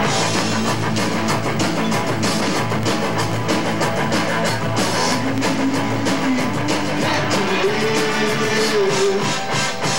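Punk rock band playing, with electric guitar, drum kit and cymbals; a long held note sounds about halfway through, then a higher held note toward the end.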